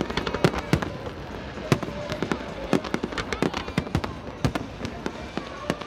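Fireworks going off: an irregular rapid series of sharp bangs and crackles, several a second.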